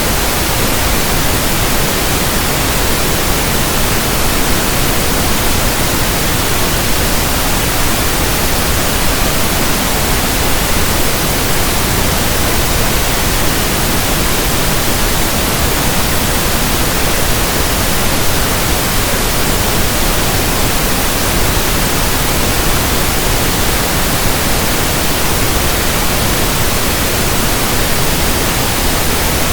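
Generated pink noise: a steady, even hiss with no tones, breaks or changes.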